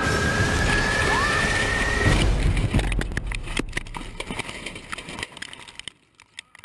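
Light aircraft crashing into trees: engine and wind noise with a rising whine, then a heavy impact about two seconds in, followed by cracking and clattering that die away.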